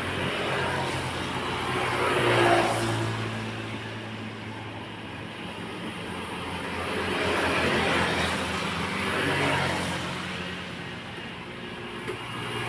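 Road traffic: vehicles passing one after another, each swelling and fading (loudest about two and a half seconds in, around eight seconds, and at the end), over a steady low engine hum.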